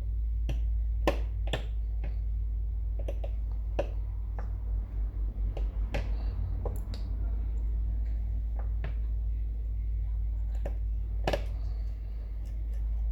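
Irregular sharp clicks and taps of small repair tools and metal parts on an open iPhone X, over a steady low hum.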